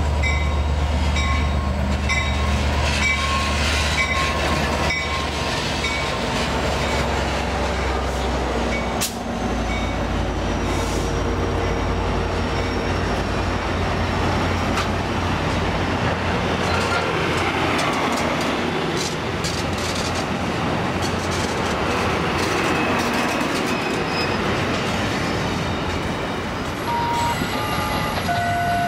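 Diesel passenger locomotive, a Caltrans F59PHI, rolling in with a bilevel train. Its engine drones deep for about the first nine seconds as it comes past. Then the passenger cars roll by with steady wheel and rail noise and a few brief wheel squeals near the end.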